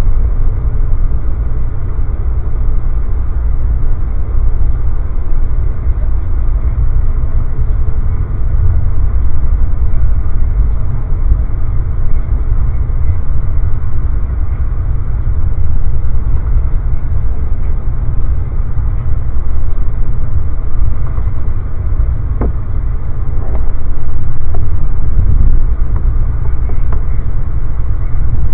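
Steady low rumble of a moving Amtrak passenger train heard from inside the coach: wheels on rail and car-body noise at speed, with a few faint clicks near the end.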